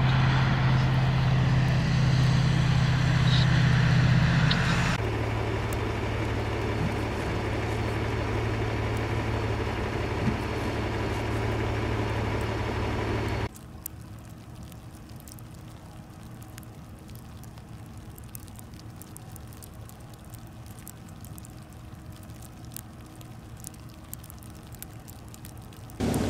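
Vehicle engine running with road noise, a steady low hum under a noisy wash; the sound cuts abruptly about five seconds in and again about halfway through, dropping to a much quieter background with faint scattered ticks.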